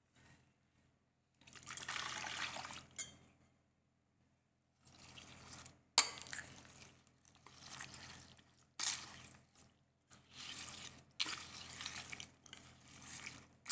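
Tempered sesame oil poured onto lemon pickle, then a metal spoon stirring the oily pickle in a glass bowl. Wet squishing and sloshing, with sharp clinks of spoon on glass about six seconds in and a few times after.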